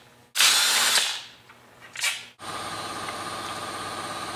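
Cordless driver run in two short bursts, one of about a second and a shorter one about two seconds in, spinning off the nuts on a chainsaw's side cover. Then a steady hum takes over.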